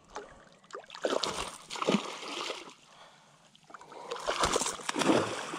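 A hooked barracuda thrashing and splashing at the water surface in two bouts, about a second in and again near the end.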